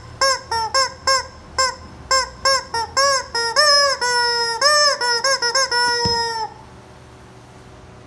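Rubber chicken squeeze toy squawking: a rapid run of short honks, about four a second, then longer drawn-out squawks that bend in pitch. It stops abruptly about three-quarters of the way through.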